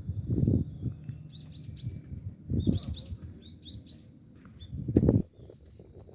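Small birds chirping in short clusters of quick rising-and-falling notes, with three loud low rumbles, one near the start, one in the middle and one about five seconds in.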